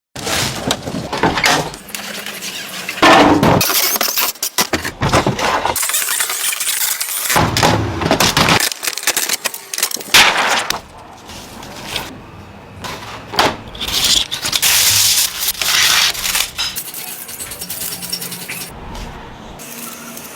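Irregular clattering, clinking and scraping of small hard objects, with sharp bursts of noise coming and going.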